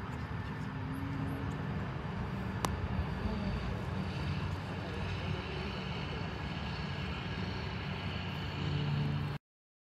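Steady low outdoor rumble with a single click about three seconds in, cutting off abruptly near the end.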